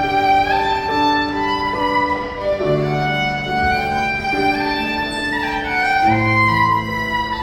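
Violin music playing a melody of held notes that change every second or so.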